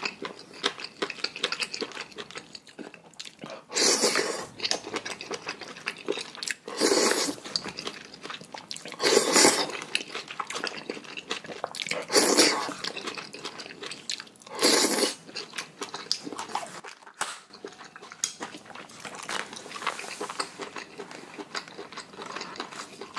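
A person eating noodles: five loud slurps about every two and a half seconds, with softer chewing and small mouth sounds between them and after them.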